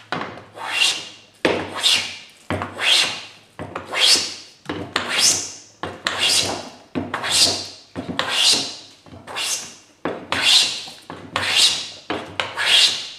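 Metal bench plane shaving a wooden board by hand: about a dozen rasping strokes, roughly one a second, each swelling and fading as the iron takes a shaving. The iron is set for a heavier cut to flatten the board's high spots.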